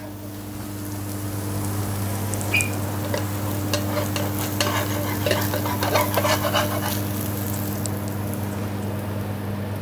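Melted Parmigiano Reggiano sizzling in a non-stick frying pan just off the heat. A metal spatula scrapes and taps against the pan as the crisp cheese sheet is lifted out, mostly between about two and seven seconds in. A steady low hum runs underneath.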